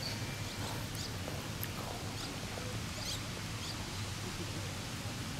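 Several short, high-pitched animal chirps come and go over a steady low outdoor rumble.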